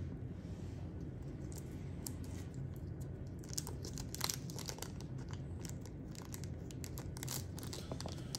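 Small parts bag being worked and torn open by hand: scattered crinkling and short crackles, thickest in the middle of the stretch.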